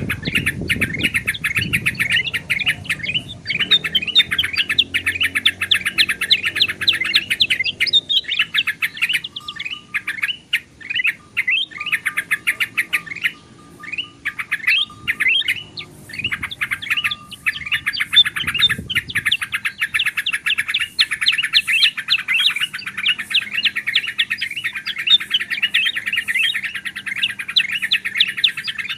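Several bulbuls calling busily over one another: yellow-vented bulbul, ruby-throated bulbul and black-headed bulbul. Their quick chirps run in a dense, unbroken stream, thinning for a few seconds midway.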